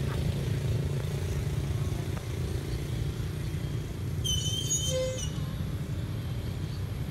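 Steady low rumble of road traffic. About four seconds in comes a high, wavering squeal lasting about a second, the cry of a baby long-tailed macaque.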